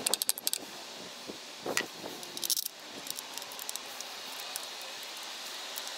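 A few quick hammer taps on the motorcycle's aluminium engine side casing, then a single knock a little under two seconds in and a brief metallic jingle, like small tools or parts, about two and a half seconds in. Steady background noise follows.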